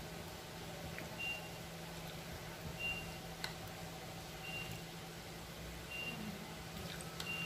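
A spoon stirring shredded green papaya pickle in a glass mixing bowl, with a few faint clicks against the glass. Behind it, a short high electronic beep repeats about every one and a half seconds over a low steady hum.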